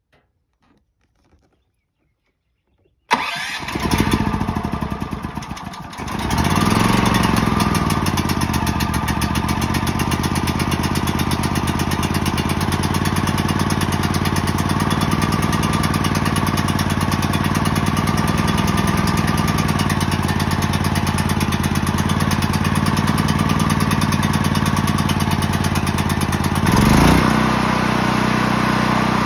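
Portable gasoline generator engine started on choke, catching suddenly about three seconds in after a few faint clicks. It runs unevenly and dips for a moment, then settles into a steady run. Near the end its note swells briefly, then steadies again.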